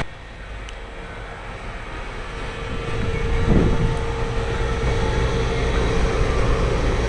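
Machinery running with a steady rumble that grows louder over the first few seconds. A steady tone joins it about three seconds in.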